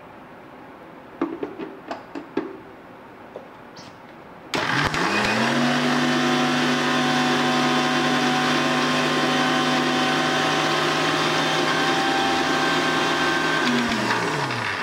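Electric mixer grinder grinding Marie biscuit pieces to powder in its steel jar. A few knocks come first as the jar and lid are set in place; then the motor starts suddenly about four and a half seconds in, runs steadily at one pitch, and winds down with falling pitch near the end.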